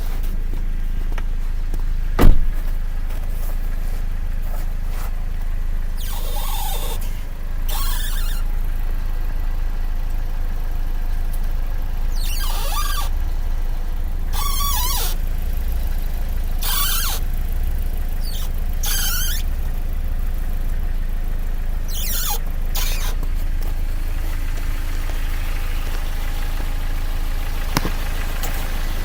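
A Dodge Caliber squeaking: short high squeaks come every couple of seconds, about eight of them, over a steady low hum. There is a single sharp click about two seconds in.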